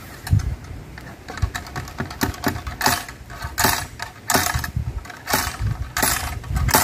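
Metal ramrod striking down inside the barrel of a muzzle-loading bacamarte (blunderbuss) as the charge is rammed home for a shot. It makes about ten sharp, ringing clinks and knocks, irregularly spaced at roughly one or two a second.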